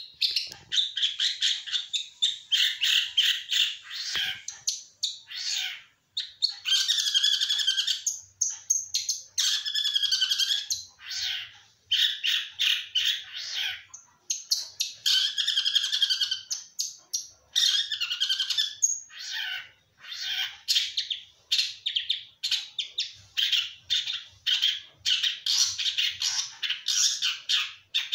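A songbird singing fast, chattering phrases in short bursts, one after another with brief pauses.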